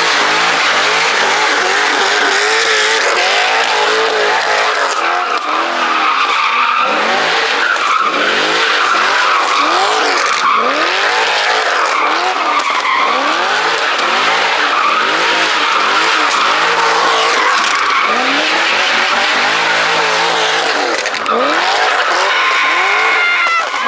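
A car drifting: its engine revs up and drops back again and again, about once every second or so, over a steady squeal of sliding tyres.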